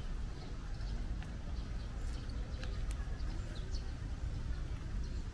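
Outdoor walking ambience: a steady low rumble under light footsteps, with scattered short, high bird chirps.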